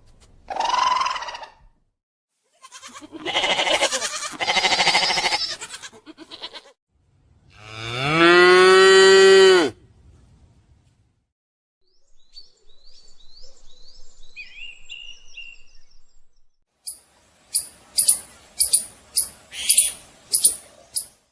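A series of separate animal calls: a short call, then rougher calls, then one long low pitched call about eight seconds in, followed by faint chirping and a quick run of sharp chirps near the end.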